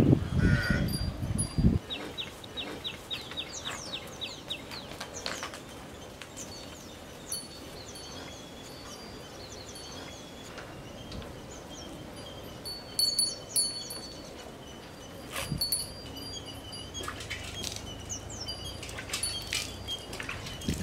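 Water sloshing and splashing in a metal basin as a cow drinks from it and a hand stirs the water, for about the first two seconds. After that, birds call over a quiet rural background: a quick run of falling chirps, then high, clear notes.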